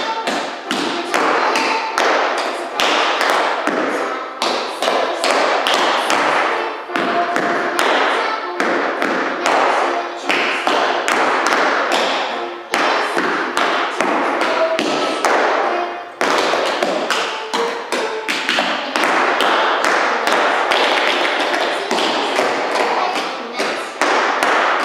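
Two dancers' tap shoes striking a hard studio floor in quick, dense rhythms of sharp taps and heavier stamps, over background music.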